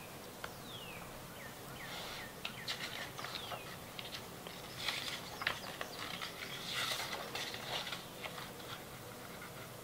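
Hardcover picture book being opened and its pages turned by hand: soft paper rustling and sliding with light taps, heaviest about five and seven seconds in. A few faint high falling whistles sound in the first few seconds.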